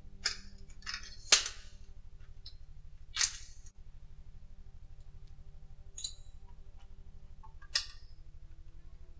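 A handful of short sharp clicks and knocks, the loudest about a second and a half in, as a video camera and tripod are handled and set up. A steady low pulsing drone runs underneath.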